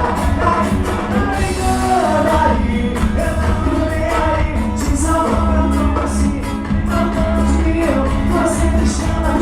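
Live band playing Brazilian party music: a singer's melody over a steady bass line and drums.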